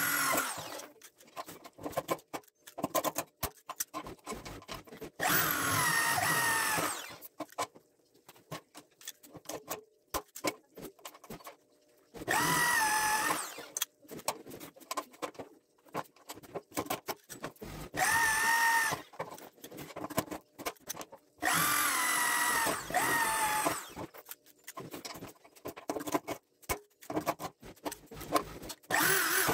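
Corded electric drill boring holes through metal angle brackets into a gate tube, in four runs of one to two seconds each. Between the runs come short clicks and snaps from a hand rivet gun setting pop rivets.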